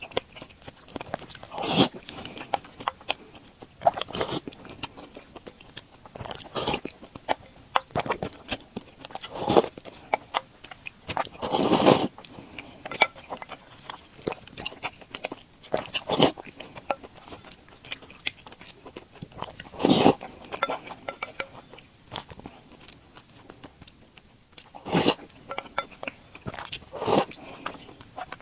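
Close-miked mukbang eating sounds: a person biting, chewing and slurping soft glutinous rice balls in sweet soup, in irregular bouts with short pauses between them.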